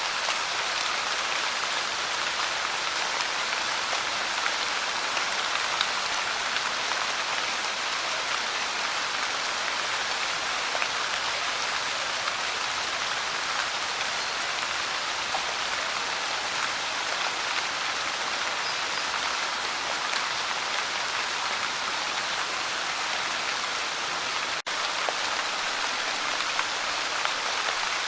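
Light rain falling steadily, an even hiss of many fine drops pattering on a surface, with a split-second gap in the sound near the end.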